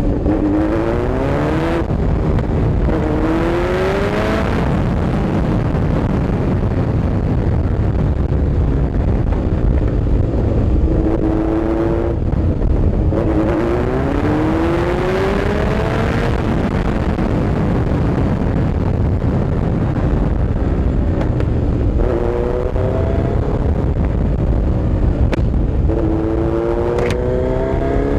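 Kawasaki Z900's inline-four engine pulling hard in repeated rising surges as the bike accelerates, under a heavy, steady wind rumble on the microphone.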